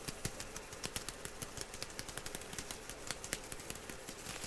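Quick, irregular light taps and clicks, several a second.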